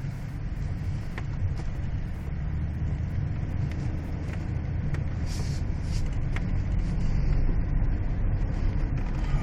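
Inside a four-wheel-drive vehicle driving through deep snow: a steady low rumble of engine and tyres, with a few light ticks, growing a little louder after about seven seconds.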